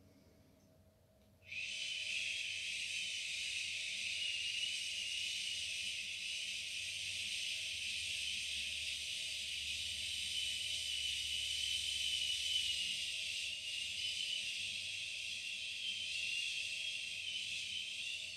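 A woman breathing out a long, steady hissing 'shhh', the Wood element's liver healing sound. It starts about a second and a half in and is held without a break.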